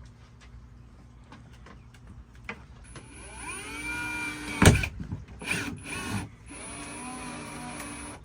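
Electric drill drilling a hole into a thin wood panel, its motor speeding up and slowing as it bores, with one sharp knock about halfway through.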